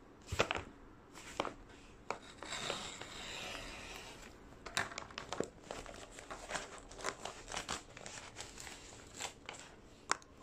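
Paper envelope being handled and opened: crinkling and rustling of paper with many small clicks and taps, and a longer stretch of tearing or rustling about two and a half seconds in.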